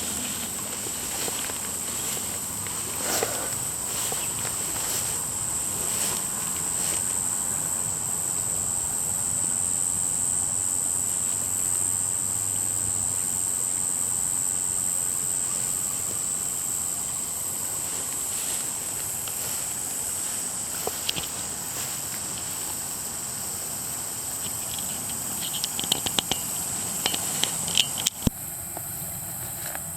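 Steady high-pitched insect chorus over a constant rushing background, with a run of clicks near the end before the sound drops away suddenly.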